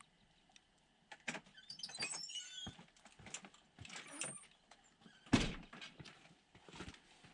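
Irregular short knocks, clicks and rustles, the loudest a single thump about five seconds in.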